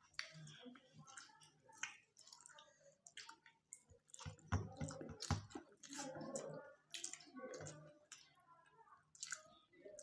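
Close-up eating sounds: wet chewing and lip smacks, with fingers squishing and mixing rice on steel plates, as many small irregular clicks and smacks, busiest about halfway through.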